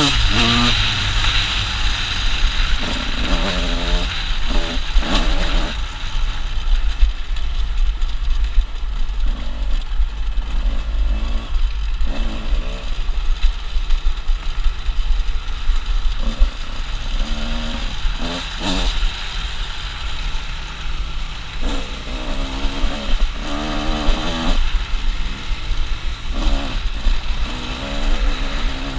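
Honda CR125 two-stroke single-cylinder dirt bike engine under riding load, its pitch sweeping up and dropping back again and again as the throttle is worked, over a steady low wind rumble on the helmet-mounted microphone.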